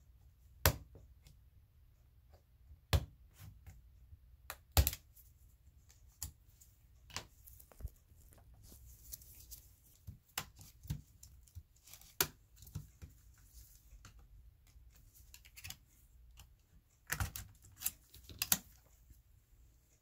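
Small clicks, taps and scrapes of a plastic spudger and fingers working the CPU cooling fan loose from a laptop's plastic and metal chassis and lifting it out. Sharp clicks come at irregular intervals, the loudest about a second in and in a quick cluster near the end.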